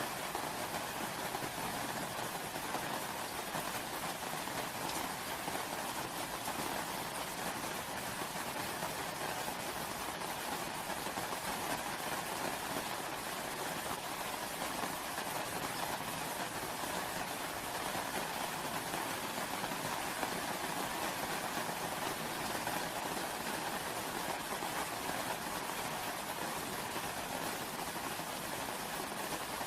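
Steady rain falling, an even unbroken hiss with no separate drops or pauses.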